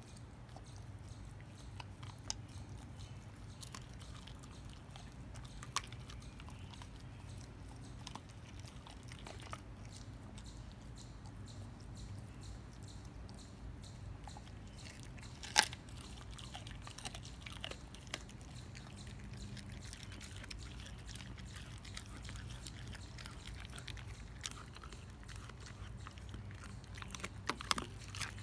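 A German Shepherd gnawing and crunching a raw beef rib bone, with scattered sharp cracks as it bites down. The loudest crack comes a little past halfway, and several come in quick succession near the end, over a steady low hum.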